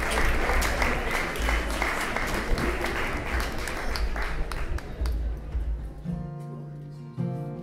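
Audience applause fading away, then an acoustic guitar starts picking the opening notes of a song about six seconds in.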